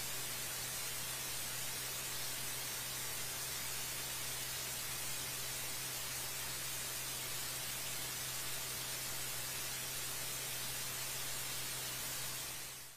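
Steady, even hiss like static, with a low steady hum underneath and no separate bangs or events; it fades out right at the end.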